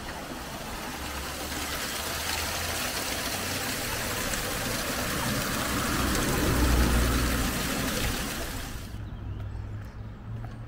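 Water pouring from the top of a canal lock and splashing into the churning water of the lock chamber below: a steady rush that grows louder, is loudest about two-thirds of the way through, and cuts off abruptly near the end.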